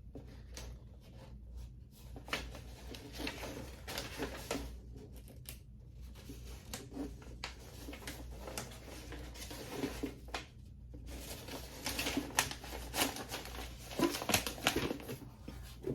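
Paper and cardboard packaging being handled: an irregular run of light rustles, taps and clicks, busier in the last few seconds.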